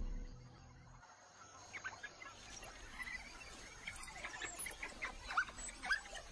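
Music fades out in the first second, then African wild dogs twitter: many short, high chirps and squeaks coming irregularly.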